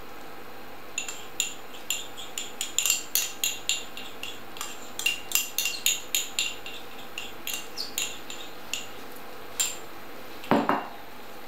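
A utensil clicking and scraping against a pan, about two or three knocks a second, as a cornflour slurry is stirred into a bubbling chicken and leek sauce to thicken it. A brief louder sound comes near the end.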